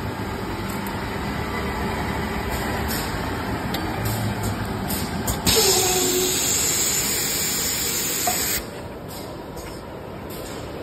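Steady mechanical running noise of a thermal paper slitter-rewinder. About five and a half seconds in, a loud hiss starts, lasts about three seconds and cuts off suddenly.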